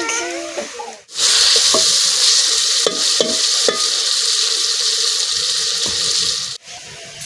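Steady sizzle of food frying in hot oil. It starts abruptly about a second in and cuts off abruptly near the end, with a few light clicks over it.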